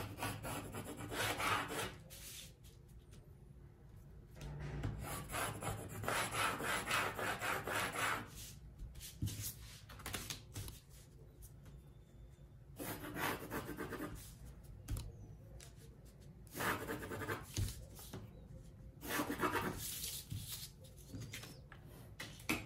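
Pencil scratching on pattern paper as lines are drawn along a drafting ruler, in five separate strokes of one to three seconds each with pauses between.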